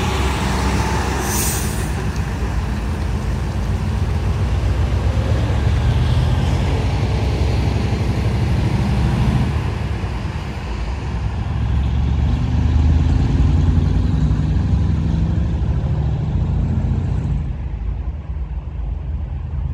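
Heavy decorated box truck's diesel engine running as it pulls away, with a short air-brake hiss about a second in. The engine note swells partway through and then dims near the end as the truck drives off.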